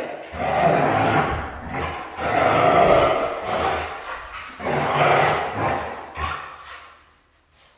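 Siberian husky vocalizing in rough play with a puppy: about four drawn-out, rough calls of a second or so each, dying away near the end.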